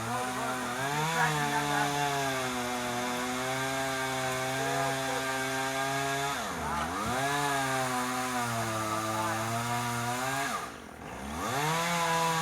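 Two-stroke chainsaw running at high revs while cutting tree wood. Twice the engine pitch drops sharply and climbs back up: once about six and a half seconds in, and again near the end, where the saw falls briefly quieter before revving up again.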